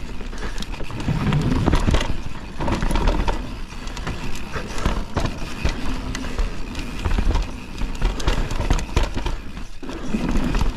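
Canyon Torque Mullet CF8 mountain bike descending a rough trail at speed: tyres over dirt and stones, with the bike rattling in constant short knocks, over a low wind rumble on the microphone.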